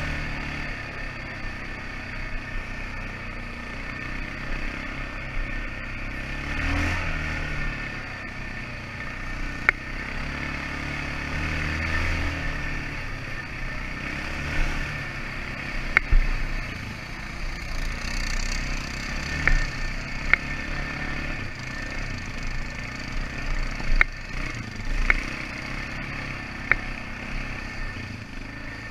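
ATV engine running at low revs, with about seven sharp cracks or knocks at uneven gaps over it, the loudest around the middle.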